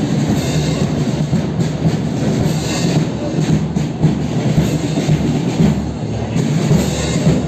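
Loud outdoor street-march noise: a constant low rumble with irregular knocks, and music mixed in.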